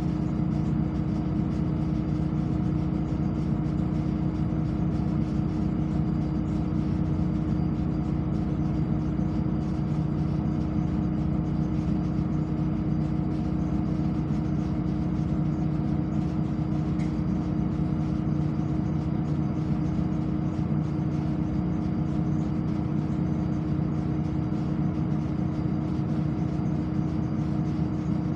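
Steady hum inside an articulated city bus standing still with its engine idling, the pitch holding even throughout.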